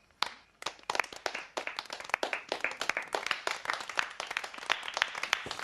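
A small group clapping their hands in applause, a quick irregular patter of claps that starts about a quarter of a second in.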